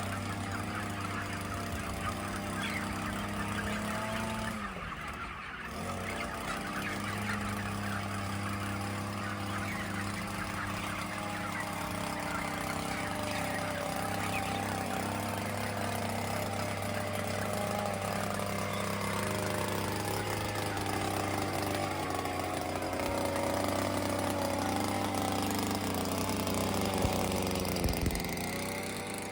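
Inside an environmentally controlled poultry house: the steady hum of ventilation fans, with a dense chorus of many chickens calling over it.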